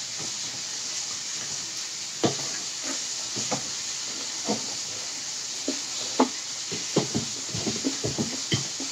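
Eating sounds: scattered short clicks and smacks of chewing and cutlery, coming more often near the end, over a steady hiss.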